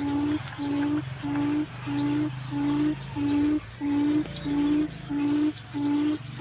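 Forest quail lure call: a steady series of short, level, low hooting notes, about one and a half a second. Thin high chirps from another bird come in every second or so.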